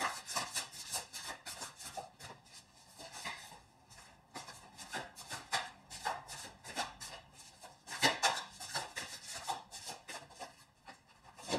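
A deck of tarot cards being shuffled by hand: a fast run of soft card clicks and slaps, louder about eight seconds in and again near the end.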